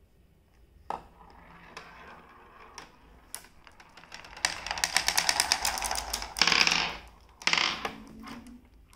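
Glass marbles clicking and clattering on a Smartivity laser-cut wooden marble run: a few single clicks, then a stretch of rapid clicking about halfway through, and two louder rattles near the end.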